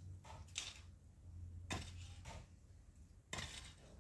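Faint scattered clicks and light clinks of small hard objects, about five in four seconds, over a low steady hum.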